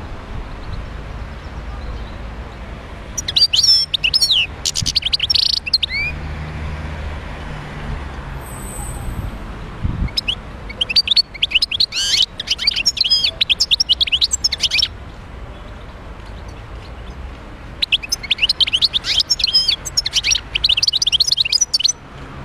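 Wild-caught European goldfinch singing: three bursts of fast, high twittering and trilled notes with pauses of a few seconds between them.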